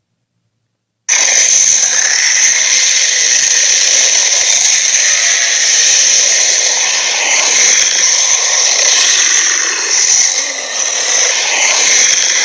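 Dragon sound effect: a loud, steady, noisy and high-pitched sound without a clear tone, starting abruptly about a second in after silence.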